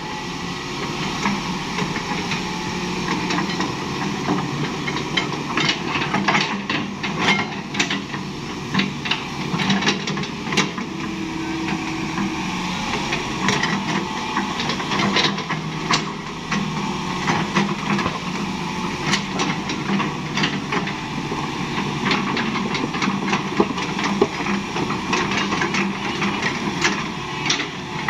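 Hitachi crawler excavator's diesel engine running steadily under load as the machine works its boom and tracks, with frequent sharp metallic clanks and knocks throughout.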